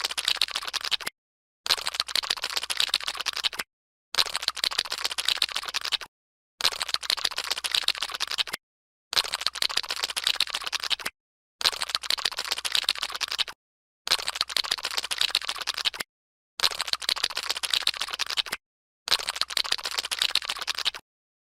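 Cartoon sound effect of Gary the Snail slithering along, played on a loop: about two seconds of dense, rapid wet crackling, then half a second of silence, repeated about every two and a half seconds.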